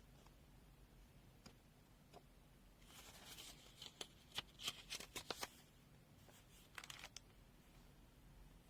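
Faint handling noise over near silence: soft rustling and a quick run of sharp clicks about three to five seconds in, then a few more clicks near the end.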